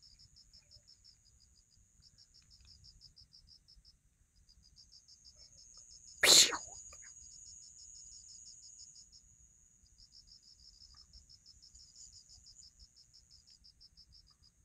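Crickets chirping in quick pulsed trills over a steady high insect buzz. One sudden loud noise comes about six seconds in.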